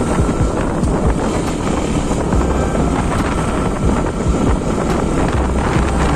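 Motorcycle riding along at road speed: steady engine and road noise mixed with wind buffeting the microphone.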